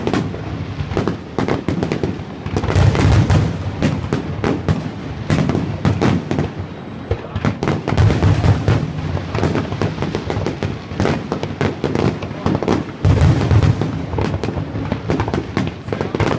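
Fireworks display: a continuous barrage of rapid bangs and crackling, with heavy booms swelling about three, eight and thirteen seconds in.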